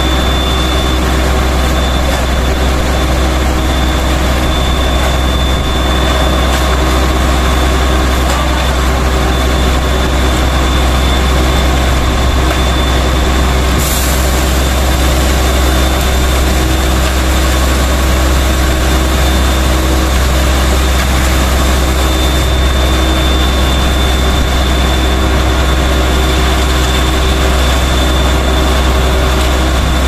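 Concrete mixer truck's diesel engine running steadily, driving the turning drum as it discharges concrete down the chute.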